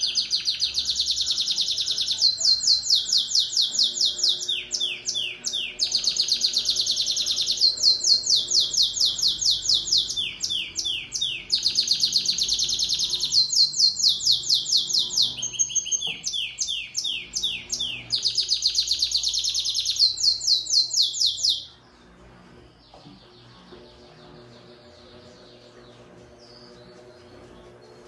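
Domestic canary singing a long, unbroken song of rapid rolling trills, the phrases changing every second or two: the endurance-style song judged in fibra contests. The song stops abruptly about three-quarters of the way through, leaving only faint background.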